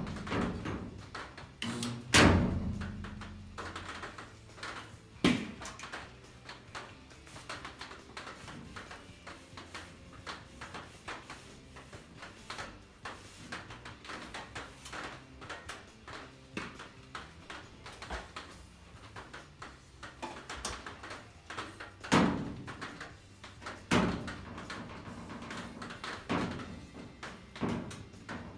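Irregular knocks and clunks of workshop handling, with four loud bangs spread through and many small clicks and rattles between them.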